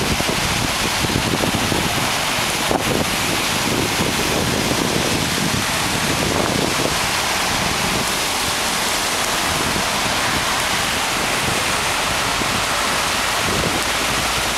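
Steady rushing wash of floodwater and rain, with wind buffeting the microphone in gusts.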